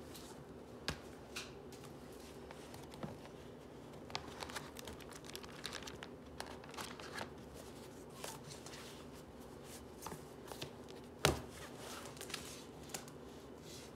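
Paper notebooks being handled and their pages flipped: scattered rustling and soft taps, with one sharper knock about eleven seconds in.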